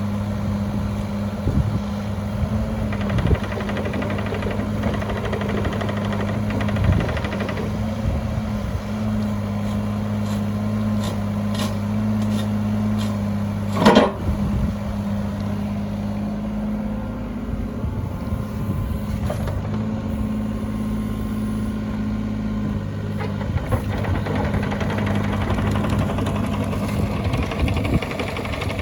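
2007 Yanmar ViO25 mini excavator's diesel engine running at a steady idle, with a few clunks and one sharp, loud knock about halfway through.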